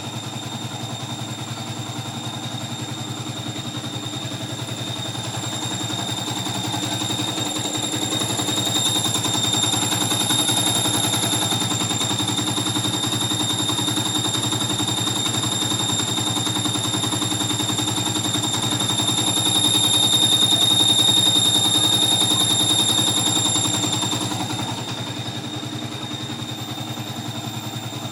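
Yamaha FZ150i's liquid-cooled single-cylinder engine idling hot with the radiator working, making a noise around the cylinder head that comes from a worn water pump (impeller shaft, bearing and oil seal). The sound grows louder twice, about a third of the way in and again later.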